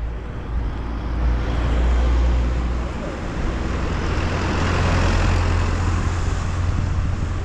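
A motor vehicle passing close on the road: a low engine rumble with tyre noise that swells toward the middle.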